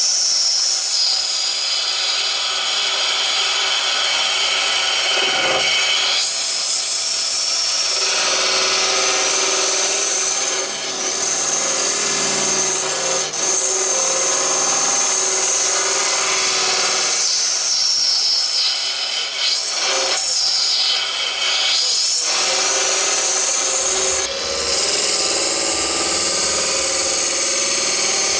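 A wood lathe spinning a resin-cast banksia pod blank while a turning tool or abrasive works against it: a steady scraping hiss with a high squeal that shifts in pitch several times as the cut changes.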